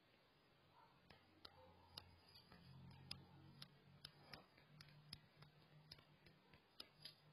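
Faint, irregular ticking clicks, roughly two a second, over a low steady hum.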